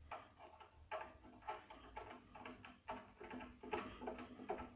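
Light, irregular clicks and ticks, about four or five a second, as a feed handle is screwed by hand into the feed hub of a Euro Craft DP 201 bench drill press.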